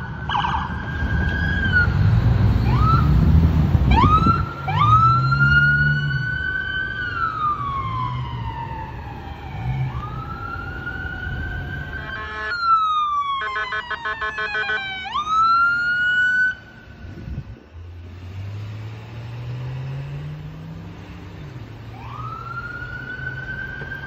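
Electronic emergency-vehicle siren wailing, rising quickly and falling slowly over and over, briefly switching to a fast yelp about halfway and starting another rise near the end, over traffic noise.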